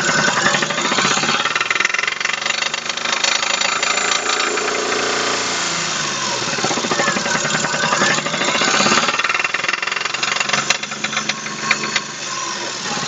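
Daewoo Matiz 0.8-litre three-cylinder engine running with a heavy, rapid knock from the crankshaft as its speed falls and rises a few times. The knock comes from spun crankshaft bearing shells after the engine ran out of oil through a blown-out front crankshaft seal.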